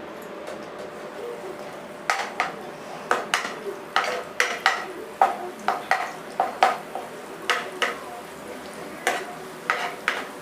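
A metal spatula stirring ginger and garlic frying in a little oil in a pan, knocking and scraping against the pan about twice a second from about two seconds in, over a low frying sizzle.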